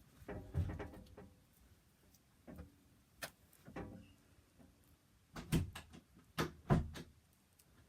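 Fidget toys being handled and clicked: a run of irregular short clicks and rattling taps, loudest as a pair of sharp clicks near the end.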